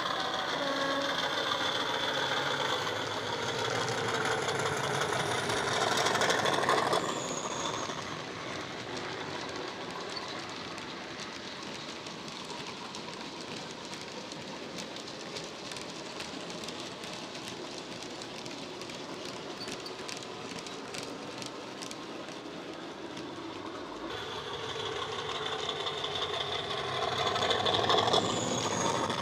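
Hornby Class 50 model locomotive's DCC sound decoder playing an English Electric diesel engine sound through its EM1 and tablet speakers as the train passes, loudest about six seconds in and again near the end. In between, the engine sound drops away, and the rapid clicking of the model wagons' wheels running over the track comes through.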